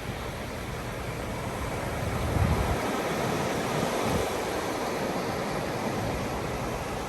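Steady wind and surf noise, with a gust rumbling on the microphone about two seconds in and a wave washing in a moment later.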